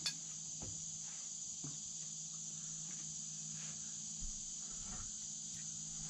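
Steady, high-pitched chorus of insects droning on without a break, with a faint low hum beneath and a soft tick near the start.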